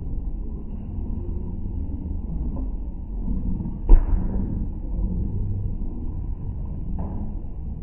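A volleyball is struck hard by hand once with a sharp smack about four seconds in, and a lighter knock follows near the end, over a steady, muffled low rumble.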